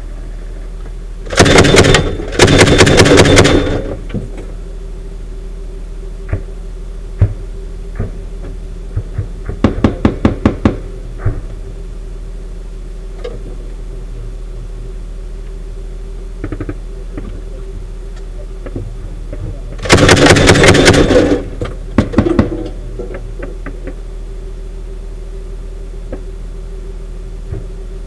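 MK-19 40 mm automatic grenade launcher firing in bursts: two long bursts near the start, a shorter run of separate shots about ten seconds in, another long burst about twenty seconds in, and scattered single shots between. A steady hum runs underneath.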